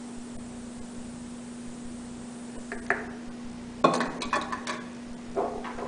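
Glass kitchenware clinking and knocking as a glass measuring cup, a small funnel and small glass bottles are handled and set down. There are a couple of light clicks about three seconds in, then a louder run of clinks about a second later and one more near the end, over a steady low hum.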